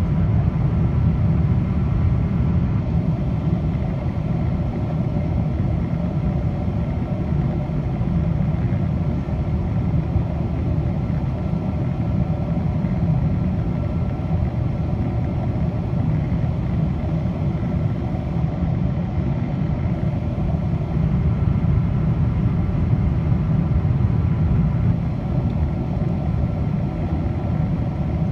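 Cabin noise inside a Boeing 777-200 on approach to land: a steady low rumble of the twin jet engines and the air rushing past the fuselage, with faint steady whining tones above it.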